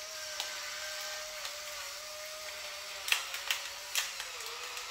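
Pepper grinder grinding peppercorns: a steady, faint small-motor whine, with a few sharp cracks about three to four seconds in.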